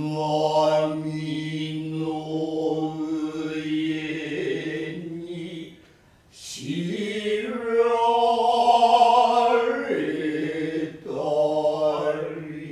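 Kyōgen actors chanting a sung passage in a low voice, with long held notes, breaking off briefly about six seconds in before the next phrase rises into another held note.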